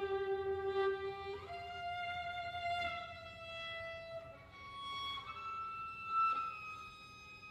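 Unaccompanied violin playing slow, long bowed notes, each held for a second or more and stepping upward in pitch from one note to the next, fading somewhat near the end.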